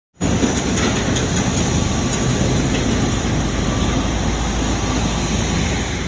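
Road traffic with heavy diesel tanker trucks driving past: a steady rumble of engines and tyre noise that starts abruptly.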